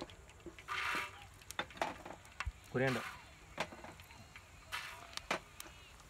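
Whole spices (black peppercorns, then coriander seeds) poured into a large aluminium pan of hot sesame oil. They sizzle briefly about a second in, with scattered small pops and ticks throughout.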